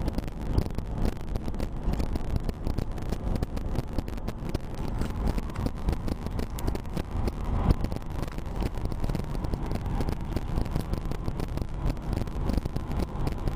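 Steady road and engine noise inside a car's cabin, driving at highway speed.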